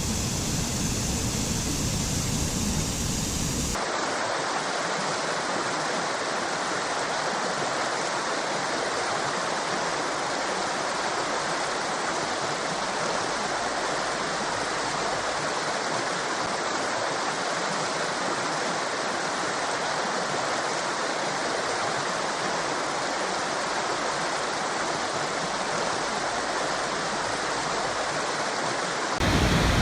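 Waterfall: steady rushing water. About four seconds in the sound switches abruptly to a brighter, hissier roar with less low rumble, and switches back again near the end.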